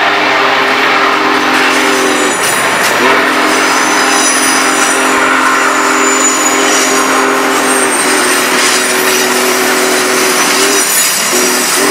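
A train's chime horn sounds a series of long blasts, several tones held together with short breaks between them. Under it run the steady rolling rumble of passenger cars passing close by and faint high wheel squeal.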